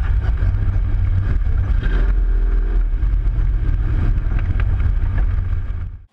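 Chevy mud truck's engine running loud, heard from inside the cab as a steady heavy low rumble. It fades out near the end.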